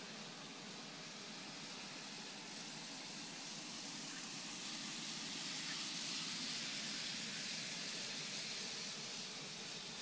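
Model electric train running on its track: a steady whirring hiss of the small motor and wheels that swells as the train passes close by, loudest around the middle, then eases off.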